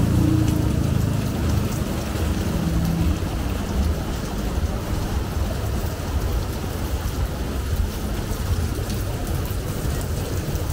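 Steady rain falling, with a low rumble underneath. A low, pitched hum fades out over the first few seconds.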